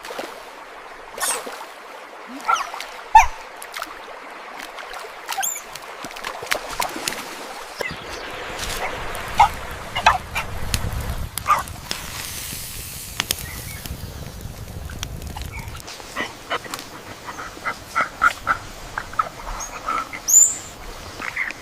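Short animal calls scattered among sharp clicks and knocks, with a quick run of chirping calls near the end.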